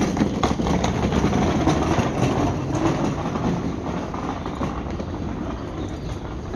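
Handcart wheels rolling over pavement: a steady rumbling rattle with quick clicks and clatters.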